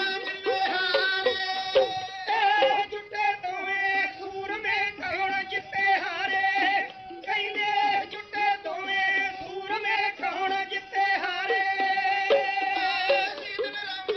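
Punjabi dhadi music: a bowed sarangi melody over a steady held drone, with quick strokes of the small dhadd hand drum.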